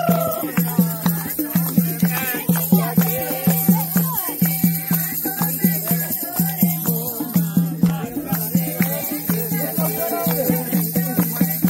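Kirtan: people singing a devotional song together over a steady low drone, with a rattling percussion instrument keeping an even beat of about three strokes a second.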